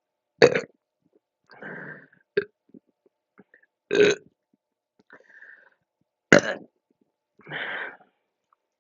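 A woman burping three times, about every three seconds, from gas after rapidly chugging carbonated soda, with softer noisy sounds between the burps.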